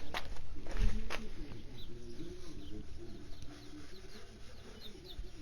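A few knocks and clatter from handling in the first second or so, while birds chirp and coo faintly in the background throughout.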